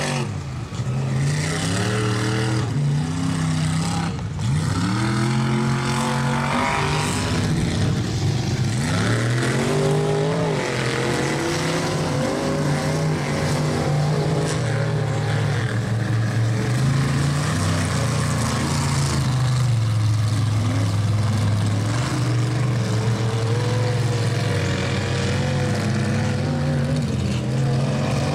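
Chevy pickup truck engine revving while the truck churns through a mud bog, its tires throwing mud and water. The engine pitch rises and falls several times in the first ten seconds, then holds steadier.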